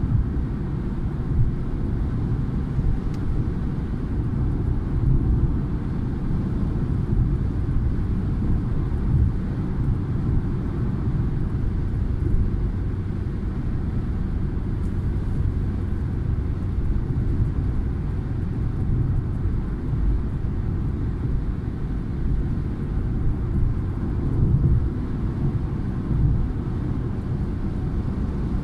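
Steady low rumble of a car driving at motorway speed, heard from inside the cabin: tyre and road noise mixed with the engine.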